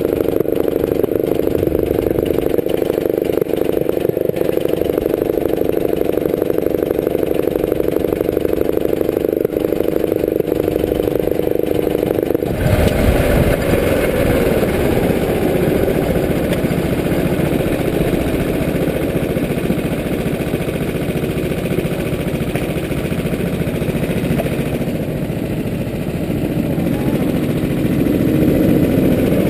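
Go-kart engine heard from onboard, running with a steady high note under full throttle. About halfway through the note breaks up and varies as the kart slows for a corner, then it builds louder again near the end.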